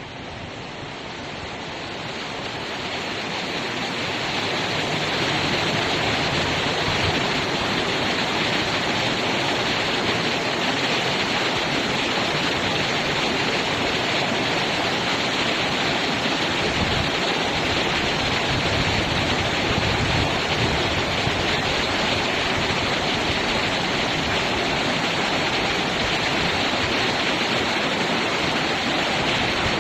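River water rushing steadily. It grows louder over the first five seconds or so, then holds constant.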